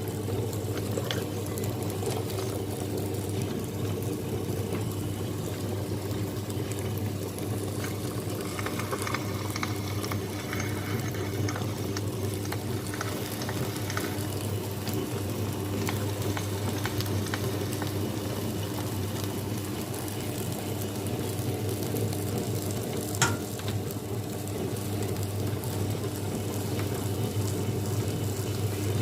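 Wonderchef Maxima wet grinder running steadily, its motor humming as it churns and grinds wet idli and dosa batter. A single sharp tap about three-quarters of the way through.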